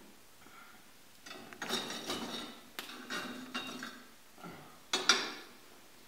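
Metal wire grill rack clattering and clinking in bursts as food is laid on it over a log fire, with a louder clatter about five seconds in.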